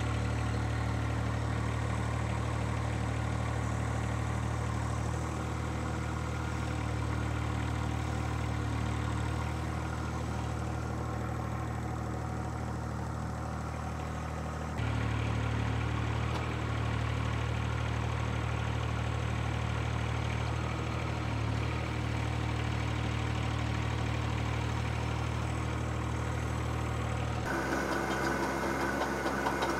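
John Deere 1025R compact tractor's three-cylinder diesel engine running steadily with an even, pulsing hum, with abrupt shifts in the sound about halfway through and again near the end.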